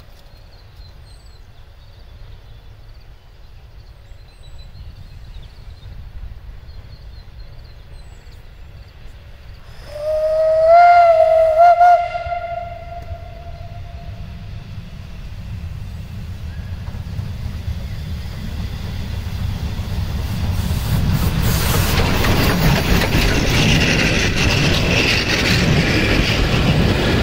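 Metre-gauge steam locomotive blowing its whistle once, for about two seconds, about ten seconds in, then running past with its coaches, the rumble of the train on the rails growing louder toward the end.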